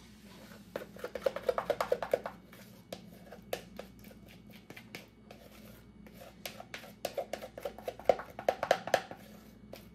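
Spatula scraping and tapping against the inside of a plastic mixing bowl as thick cake batter is scraped out into a baking pan, in two runs of quick strokes: one about a second in and another in the second half.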